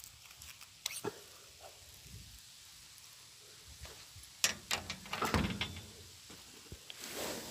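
Handling noise from an angler landing a fish with a rod and reel: scattered clicks and knocks, a clatter of sharp knocks with a dull thump about five seconds in, then a short rush of noise near the end.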